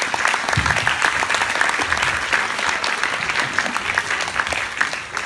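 Audience applause: many hands clapping at once, steady throughout.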